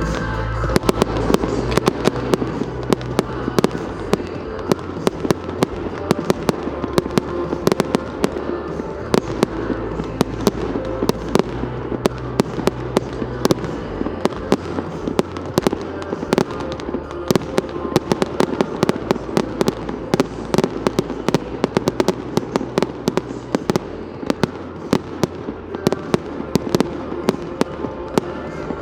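Firework display going off: a dense, continuous run of sharp bangs and cracks, several a second, over music playing underneath.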